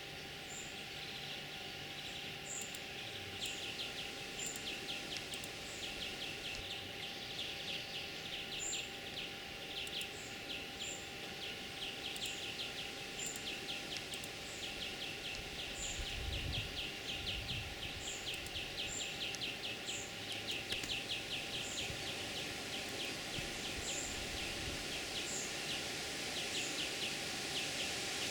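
Outdoor bird ambience: fast, pulsing trills come in repeated runs, with a short, thin, high chirp about once a second. A brief low rumble comes twice, around the middle and again later.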